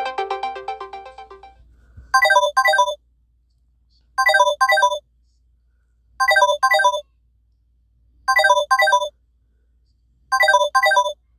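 Samsung Galaxy A71 5G ringtone playing: a double ring of quick falling electronic note runs, repeating about every two seconds. At the start the previous ringtone's music fades out.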